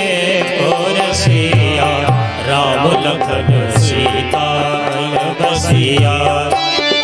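Harmonium and dholak playing an Indian devotional bhajan interlude: sustained reed chords carry the melody over a steady hand-drum rhythm of low strokes. A voice holds and ornaments the melody without words.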